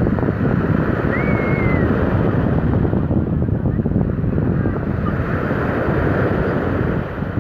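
Small sea waves breaking and washing up on the shore, a steady rush of surf with wind buffeting the microphone.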